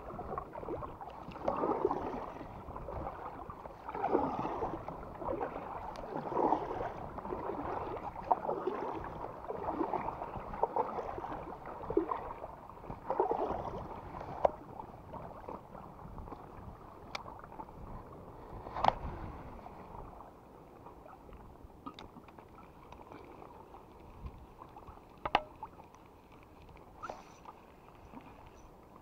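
Paddle strokes splashing and swishing in the water beside an inflatable canoe, one every second or two. About halfway through, the strokes stop and it goes quieter, with a few sharp knocks.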